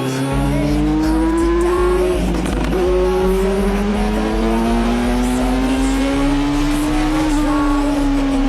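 Motorcycle engine running under load at fairly steady revs, its pitch slowly rising and falling as the throttle changes.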